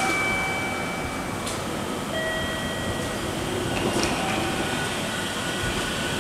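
JR Central 313 series electric train starting to pull away from the platform. Its VVVF inverter whines in a few steady high tones that change in steps, over the low running noise of the train.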